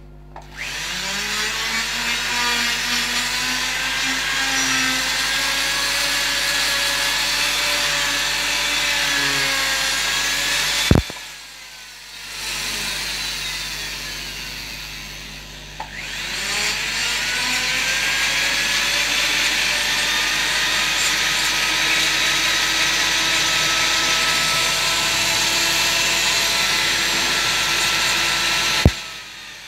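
Flexible-shaft rotary carving tool spinning up with a rising whine and grinding into the wooden carving. It stops with a sharp click about eleven seconds in and winds down, then starts again a few seconds later and runs until another click near the end.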